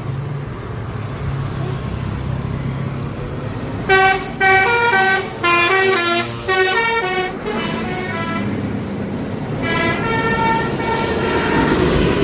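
Bus engine running, then about four seconds in a basuri 'telolet' multi-tone musical air horn plays a quick melody of short notes stepping up and down. Longer held horn tones follow near the end.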